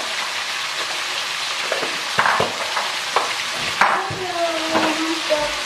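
Green beans and winged beans sizzling as they stir-fry in a pan, with a spatula scraping and knocking against the pan several times. The vegetables are at the end of cooking, just seasoned with sugar.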